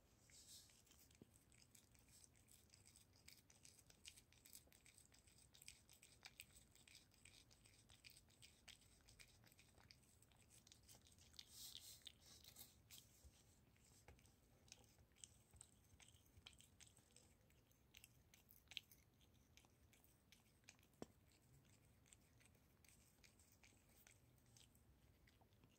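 A domestic cat licking and chewing a sausage held in a hand: faint, irregular wet smacks and clicks of tongue and teeth.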